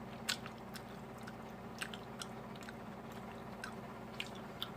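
A person chewing a mouthful of chicken, with scattered small wet clicks of the mouth, over a steady low hum.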